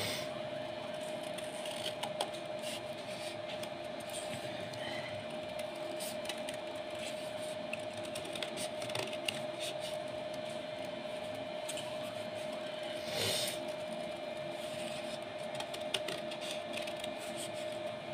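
Scissors snipping through folded golden paper, with the paper rustling as it is handled: faint scattered snips and a louder rustle about 13 seconds in. A steady hum runs underneath.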